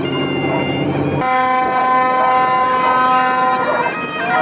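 Bagpipes playing. About a second in, a long steady horn blast from the departing passenger boat sounds over them for about two and a half seconds.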